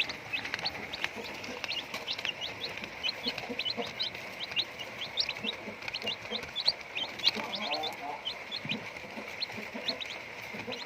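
A flock of chickens at feeding time: a constant stream of short, high-pitched peeps with occasional lower clucks among them.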